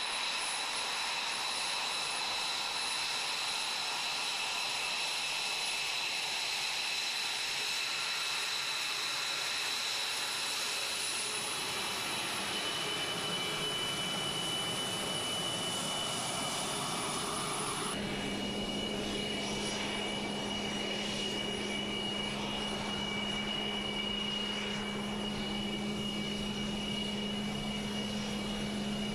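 Lockheed Martin F-22 Raptor's twin Pratt & Whitney F119 turbofan engines running at taxi power: a steady jet whine of several high tones over a hiss. About two-thirds of the way through the pitch of the whine changes abruptly and a low steady hum joins it.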